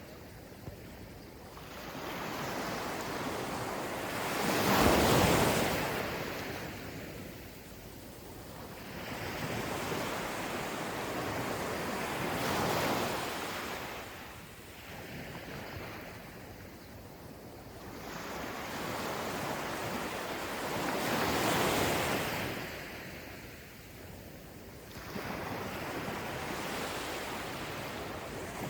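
Gentle ocean waves breaking and rolling onto a beach, the surf swelling and fading about every eight seconds, loudest about five seconds in.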